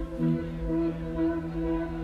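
Electronic music from a live DJ set played over a large sound system: held synth chords over a steady low bass.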